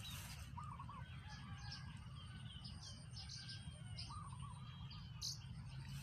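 Several birds chirping and calling, with a short warbling phrase about half a second in and again about four seconds in, over a steady low rumble.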